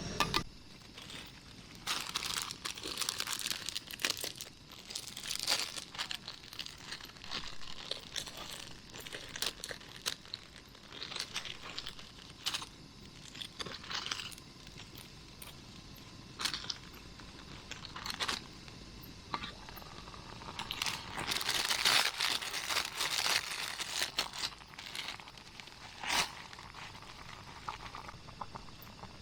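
Intermittent crinkling and rustling of something being handled, with scattered sharp clicks and a busier stretch about three quarters of the way through.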